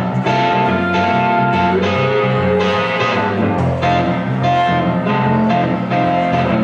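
Live music from a duo: a hollow-body electric guitar and an electric keyboard playing together, with held notes over a bass line and a steady rhythm.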